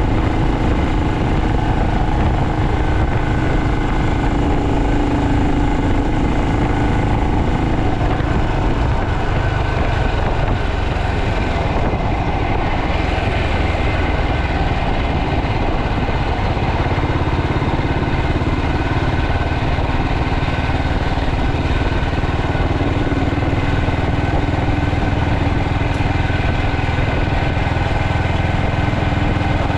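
BSA Starfire's swapped-in B44 single-cylinder four-stroke engine running steadily at a fairly even speed.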